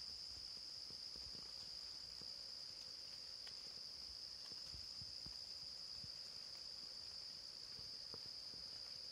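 Faint, steady high-pitched insect chorus, with scattered soft ticks of raindrops falling on leaves.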